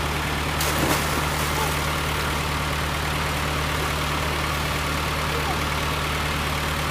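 A running tubewell: the pump's drive hums with a steady low drone while water gushes into the concrete tank.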